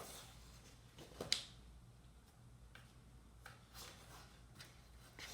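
Tire lever being dragged around a bicycle rim to work the tire bead off: a few faint clicks and light scrapes, the sharpest about a second in, over a low steady hum.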